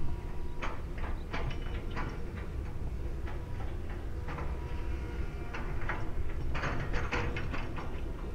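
Low, steady rumble of a Korean Air Airbus A330 airliner's jet engines on approach, with scattered short high ticks through it.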